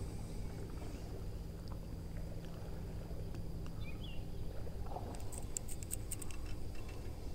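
Steady low rumble with a few faint scattered clicks; a little past the middle, a short run of rapid sharp ticks lasts about a second.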